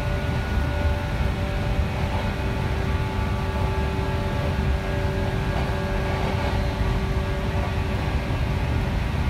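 Cabin noise of an IR Ishikawa Railway 415 series electric train under way: a steady low rumble from the wheels and running gear, with a faint even hum of several tones running over it.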